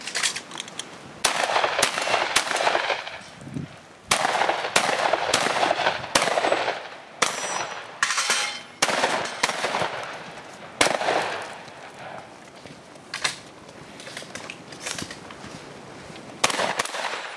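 Gunshots from a 3-gun stage: first a Benelli M2 semi-automatic shotgun, then a pistol. About a dozen shots at an uneven pace, some in quick pairs, each followed by a long echo off the surrounding trees.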